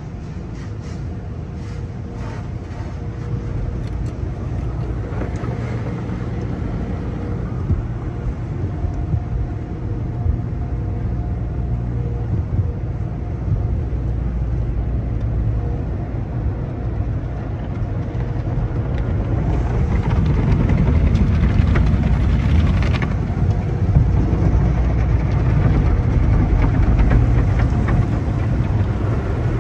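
Tunnel car wash heard from inside the car's cabin: the cloth mitter curtain sweeping across the roof and windshield, then wraparound brushes and water spray on the glass, over the machinery's steady hum. A dense low wash of noise that grows louder about two-thirds of the way through.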